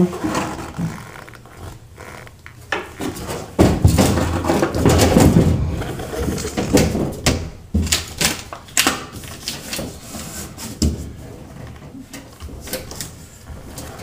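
Sheet-metal service door of an air handler being handled and fitted back into place: scattered knocks and rattles, with a louder stretch of handling noise about four seconds in. Hands then press foil tape down along the door's seam.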